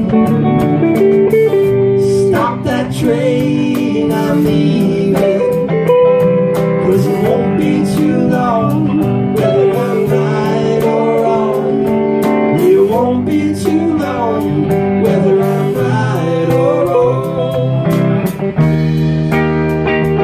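Live band playing a blues song: electric guitar lead with notes bending up and down over drums and a steady low accompaniment.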